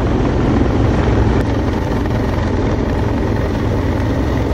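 Rescue helicopter hovering close overhead: loud, steady rotor beat with the whine of its turbine engines.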